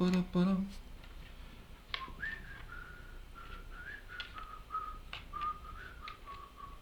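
A person whistling a slow tune, one wavering note at a time, starting about two seconds in after a brief hum. A few light clicks of small parts being handled sound over it.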